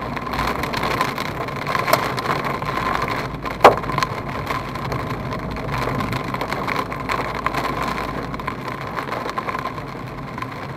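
Rain and hail pelting an Abarth's roof and windscreen, heard from inside the cabin as a dense patter of small ticks with one sharp, loud knock a little over three and a half seconds in. The car's engine and tyres run steadily underneath.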